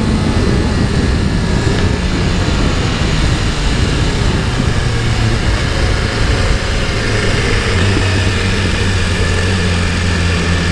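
BMW S1000RR's inline-four engine running on the move, under a loud, even rush of wind on the onboard microphone. Near the end the engine note settles to a steady low tone.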